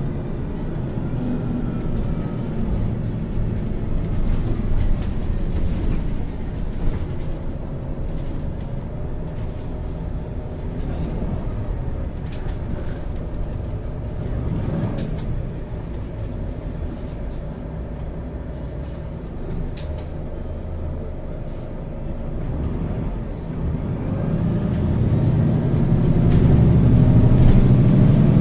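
MAN Lions City Euro 6 city bus engine running with a steady rumble while the bus drives. About three-quarters of the way through it grows louder as the bus accelerates, and a faint rising whine comes in near the end.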